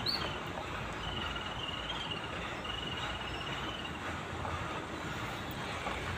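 Tata Safari Storme SUV rolling slowly toward the camera on a gravel track: a steady rumble of tyres on loose gravel with its diesel engine running low. A high chirping trill sounds over it from about one to four seconds in.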